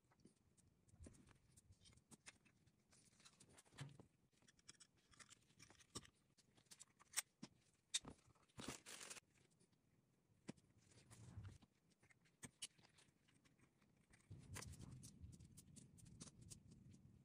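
Faint clicks, taps and rustles of small metal and plastic motorcycle carburetor parts being handled and fitted together by gloved hands, with a few sharper clicks around seven to eight seconds in. A low rumbling noise comes in near the end.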